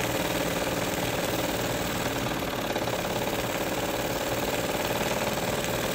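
Bing vertical toy steam engine running steadily under steam, a fast, even mechanical beat at constant speed.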